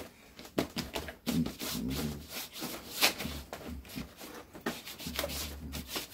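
Paper towel rubbing and dabbing acrylic paint on watercolour paper: irregular scratchy strokes, the sharpest about three seconds in.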